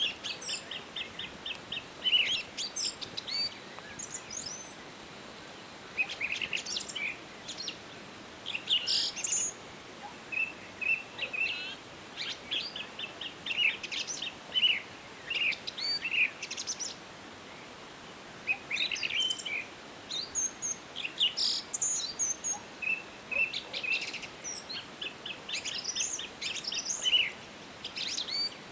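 Forest songbirds singing and calling, with rapid chirping phrases and trills following one another after short pauses, over a steady faint background hiss.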